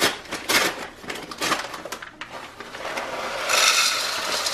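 Paper pouch of dry stuffing mix crinkling and crackling as it is torn open, then the dry stuffing crumbs pouring into a mixing bowl with a steady rushing hiss starting about three and a half seconds in.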